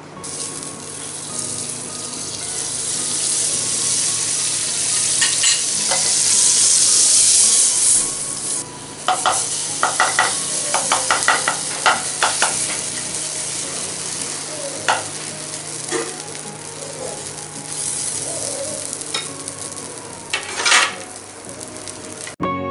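Semolina-and-yogurt vegetable batter sizzling in a hot greased nonstick frying pan, the sizzle building over the first few seconds as the batter goes in. A steel ladle spreads the batter, tapping and scraping the pan in a quick run of clicks around the middle.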